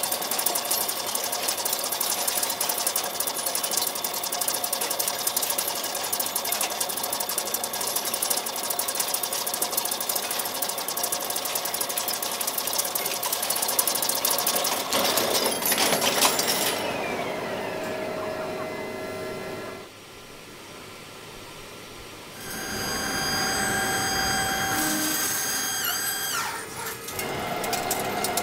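Heavy lathe cutting a large steel shaft: a rapid, dense crackle of thick chips curling off the cutting insert and breaking. About two-thirds through, this gives way to a quieter, steady machine sound with high level tones and a brief falling whine.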